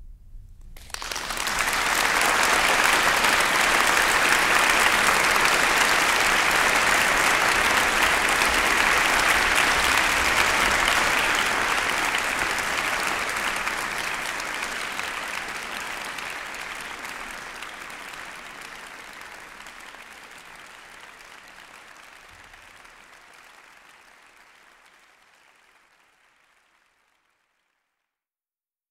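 Audience applauding: it starts about a second in, holds steady for about ten seconds, then slowly fades out before the end.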